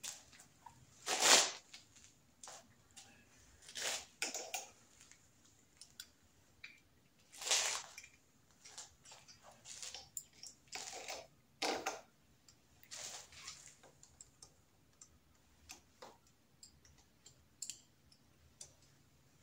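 Handling noises from adjusting and tightening a bar end mirror on a motorcycle handlebar: scattered small clicks and taps, with several short scuffing rustles. The loudest scuff comes about a second in.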